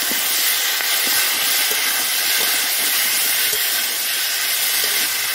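Pumpkin pieces sautéing in hot oil in a metal karai, a steady sizzling hiss, with light scrapes of a metal spatula as they are stirred.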